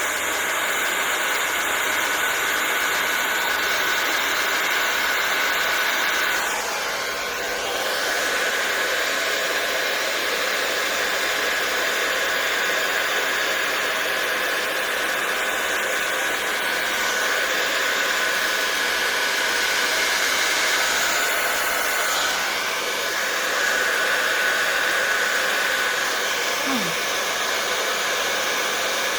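Hair dryer with an attachment running steadily, blowing air with a constant high whine. Its sound briefly changes about seven seconds in and again a little past twenty seconds.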